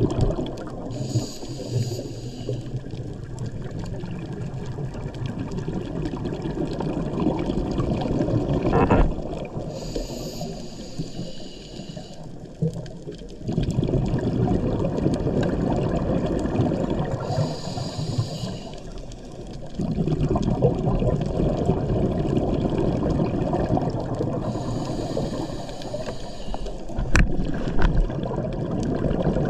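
Scuba diver breathing through a regulator underwater: four slow breaths, each a hissing inhale of about two seconds followed by a long rush of exhaled bubbles.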